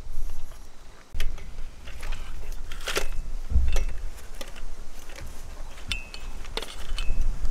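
Wind rumbling on the microphone, heaviest about halfway through, with scattered clicks and a few short high bird chirps near the end.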